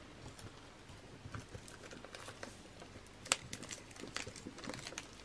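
Faint rustling and light taps of paper and card being handled on a desktop, with one sharper tap about three seconds in.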